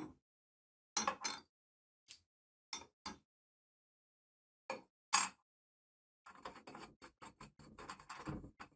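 A series of short knocks and clinks of workshop parts and tools being handled, with dead silence between them, then a quicker run of small clicks and rattles in the last couple of seconds.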